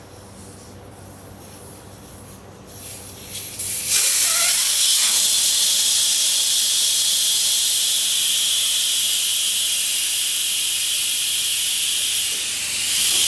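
Air hissing out of a motorcycle tyre's valve stem with the valve core unscrewed: the tyre deflating. The hiss builds in about three seconds in, then runs loud and steady, dipping briefly near the end.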